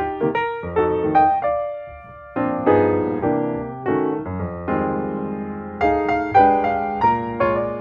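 Background music on a piano-like keyboard: notes and chords struck one after another, each fading before the next.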